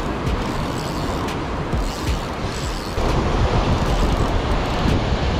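Wind buffeting the microphone over surf breaking against the rocks below, a steady rumbling wash that gets louder about three seconds in.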